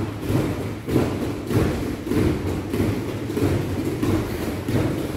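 A group of karateka throwing rapid roundhouse kicks (mawashi geri chudan) in the air, bare feet thudding and shuffling on the mats in an uneven run of dull thumps, about two a second.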